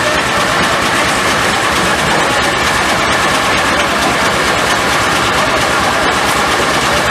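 Steam-powered sawmill machinery running steadily: a loud, continuous mechanical din with a fast, even beat underneath and a faint held whine.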